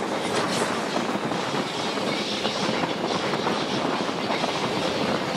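"Fanta" electric railcar (FS ALe 801/940 type) running at speed, heard from an open window: a steady rumble of wheels on the rails mixed with rushing air.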